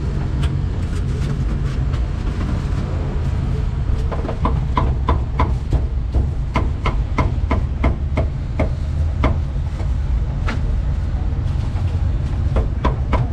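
Sharp chopping strikes, most likely a cleaver cutting grilled duck on a wooden block, coming in a quick run of about two to three a second from a few seconds in, over a steady low rumble.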